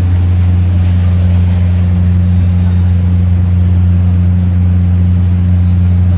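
Steady, loud low machine hum, like a motor or blower running, holding one unchanging pitch throughout.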